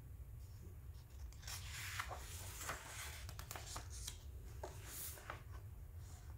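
Paper rustling as the pages of a paperback book are turned and smoothed by hand, with a few sharp flicks of paper, loudest about two and five seconds in. A steady low hum runs underneath.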